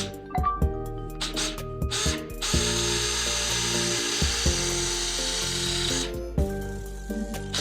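A power tool runs steadily for about three and a half seconds, starting about two and a half seconds in, with sharp clicks and knocks before and after it, over background music.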